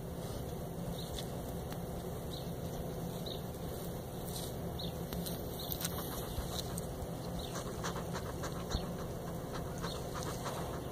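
Faint rustling and scratchy clicks of a porcupine moving about on gravelly ground, its quills and claws shifting, thickening from about four seconds in, over a steady low background rumble.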